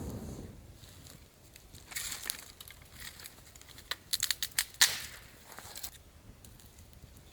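Dry twigs and deadwood crunching and snapping while a campfire is built, with a quick run of sharp cracks about four to five seconds in.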